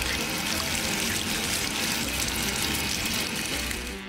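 A steady jet of water hissing and splashing onto a dog's wet fur and the concrete beneath it.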